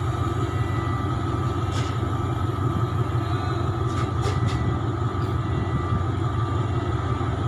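Diesel train running with a steady low rumble and a faint steady whine above it, with a few brief clicks about two and four seconds in.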